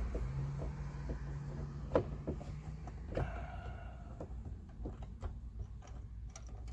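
Scattered light clicks and knocks of a screwdriver and hand working at the plastic inner trim panel of a pickup's rear door, as its Phillips screws are backed out. A low steady hum runs under the first half.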